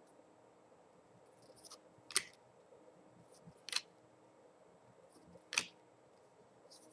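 Cardboard trading cards being flipped through by hand, a card slid off the stack and flicked to the back each time: three short, sharp card snaps about a second and a half apart, each with a faint rustle of card sliding on card just before it.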